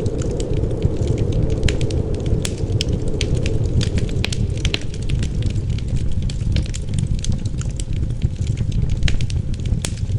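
Wood fire crackling, with frequent irregular sharp pops, over a steady low rumble of wind.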